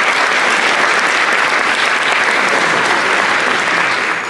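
Audience applauding steadily at the end of a live song.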